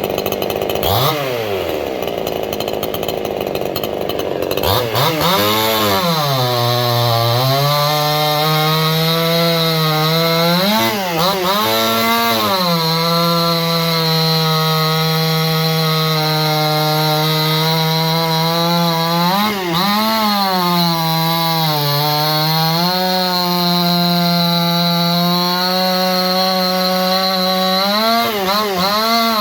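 Supmix gas chainsaw with a hand-filed .325 chain cutting wood at full throttle. The engine pitch sags and holds steady while the chain is loaded in the cut, and rises briefly several times as the load eases.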